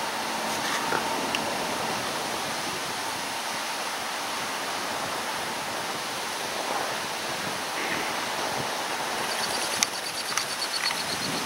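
Steady rush of river water flowing and rippling around floating logs. Near the end a faint, rapid, high-pitched ticking and a single sharp click are heard.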